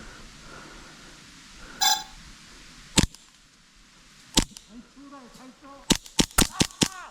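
Airsoft guns firing in the woods: a single sharp crack about three seconds in, another over a second later, then a quick string of five cracks near the end. A brief high tone sounds shortly before the first crack, and faint voices are heard.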